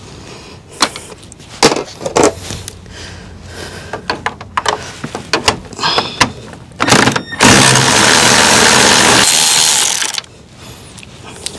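Cordless Milwaukee power ratchet backing out a screw: a short blip, then a steady motor run of about two and a half seconds. Before it come scattered light clicks and knocks of the tool being fitted to the fastener.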